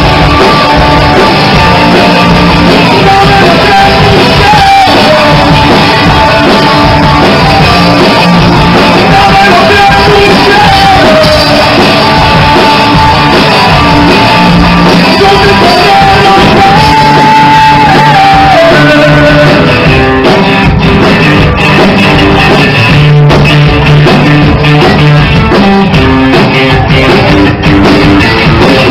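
Rock band playing a Spanish-language song: a sung vocal line over electric guitar and drums, giving way to an instrumental guitar passage about twenty seconds in.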